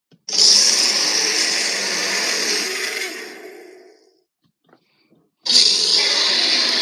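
Two harsh, hissing creature roars or screeches from film-monster sound effects. The first fades out over its last second; after a short silence the second starts suddenly, about five and a half seconds in.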